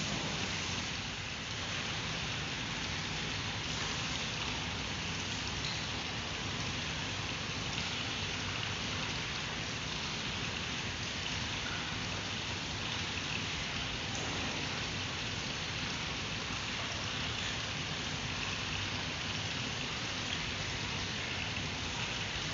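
A steady, even hiss with no separate sounds standing out.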